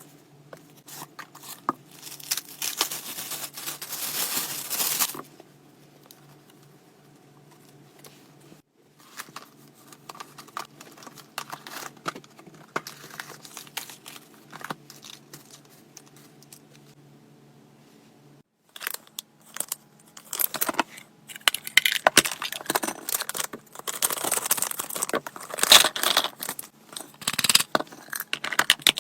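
Gift packaging being torn open and crinkled, in repeated bursts of rustling and tearing with small sharp clicks and taps between them, densest and loudest in the last third.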